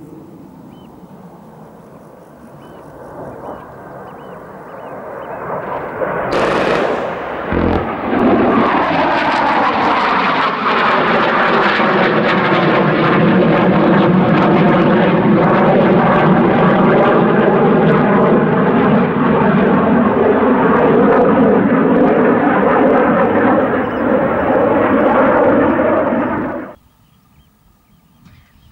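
Panavia Tornado jet with its twin RB199 turbofans flying past: the jet noise builds over several seconds, then stays loud and steady while its pitch slides down as it passes, and cuts off abruptly near the end. A brief sharp burst is heard about six seconds in, as the jet noise swells.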